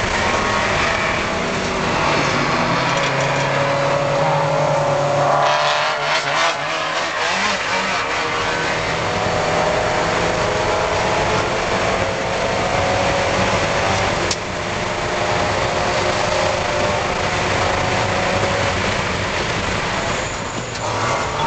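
Inside the cabin of a Spec Miata race car at racing speed: the four-cylinder engine runs hard under a steady rush of wind and road noise. Around six seconds in, the engine note dips and changes pitch as the driver lifts or shifts, and a single sharp click comes about fourteen seconds in.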